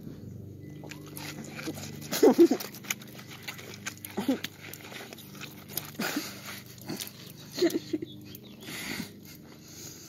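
Two people gorging on watermelon: wet biting, slurping and chewing, with short muffled vocal noises every couple of seconds, the loudest about two seconds in.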